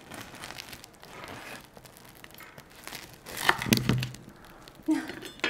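Bread knife sawing through the thick, crisp crust of a freshly baked round loaf, giving a crackling, crunchy rasp with each stroke. About three and a half seconds in there is a louder crunch and knock as the blade comes through onto the wooden cutting board.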